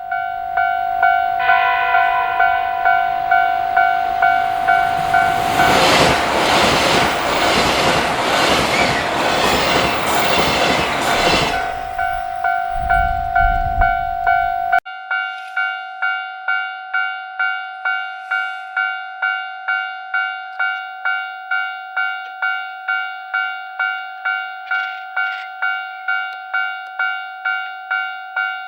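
Japanese level-crossing alarm ringing a steady electronic ding-ding, about two strikes a second. A train gives a short horn blast about two seconds in, then passes loudly with wheel and rail noise for about six seconds. The train noise stops suddenly about halfway through, leaving the crossing alarm ringing alone.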